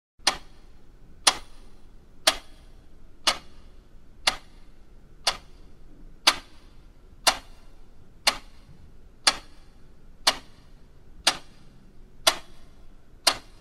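A clock ticking: sharp, evenly spaced ticks about once a second, fourteen in all.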